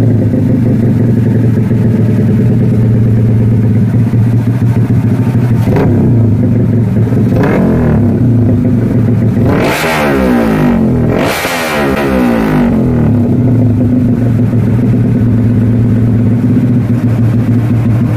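Motorcycle exhaust note from a Pro Liner MP1 aftermarket exhaust on a 200cc single-cylinder four-stroke engine, running at a steady idle and blipped with the throttle about four times; the biggest revs come about ten and twelve seconds in.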